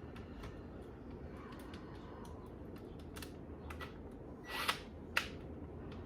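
Scattered small clicks and taps of hand tools and metal parts being handled during rivet removal, with two sharper clicks about four and a half and five seconds in, over a low steady background hum.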